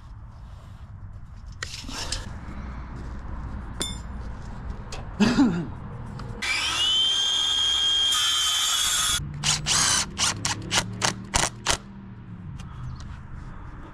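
Cordless drill/driver driving screws into a wooden concrete form board. The motor spins up to a steady whine that lasts about three seconds, then comes about eight short trigger bursts as the screw is seated. A short clatter comes about five seconds in.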